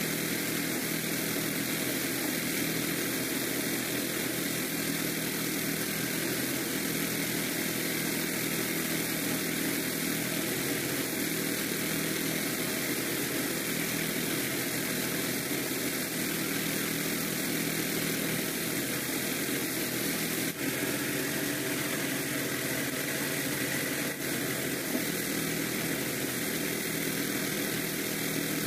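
Small gasoline engine running steadily, powering a rice thresher while bundles of rice stalks are fed through it.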